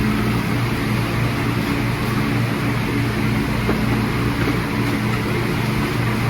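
A steady, low mechanical hum at one unchanging pitch, like a motor or engine running at idle.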